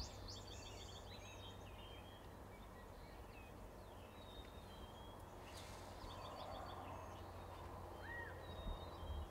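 Faint songbirds calling, with scattered short high chirps and trills and one arching call near the end, over a low steady hum.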